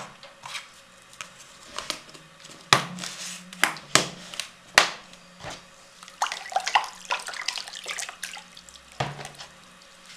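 Water splashing and spattering into a plastic basin over a layer of white granules, in separate splashes at first and then a denser run of spatter in the second half.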